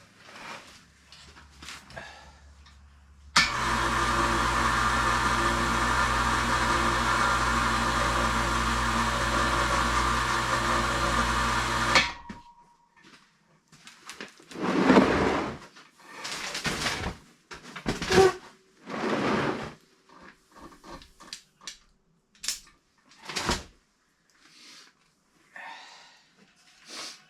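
An electric power tool's motor runs steadily for about nine seconds and then stops suddenly, followed by scattered short knocks and handling noises.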